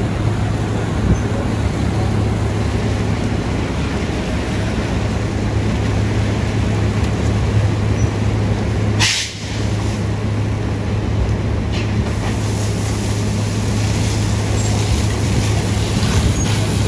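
Heavy truck's diesel engine running steadily with a constant low hum, over the even rushing of a fire hose stream on the burning truck. A short sharp hiss about nine seconds in.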